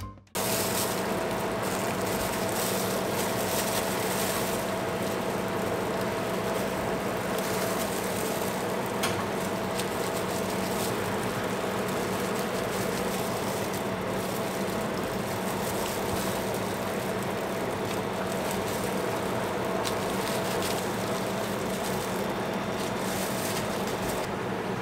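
Steady machine hum of cafe kitchen equipment: a constant drone with a held higher tone underneath. A knife cutting layered cake on a cutting board adds a few faint knocks.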